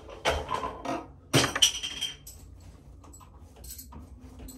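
Metal bo-shuriken clinking against one another as they are gathered at the target: a few sharp clinks with a ringing note in the first two seconds, then only faint handling sounds.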